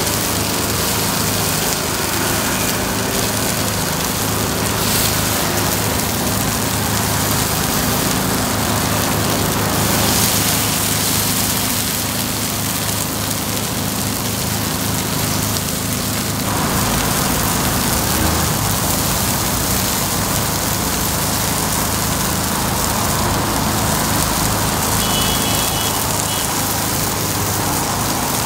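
Takoyaki batter sizzling steadily in a griddle, over a low steady hum. Near the end there is a brief high beep.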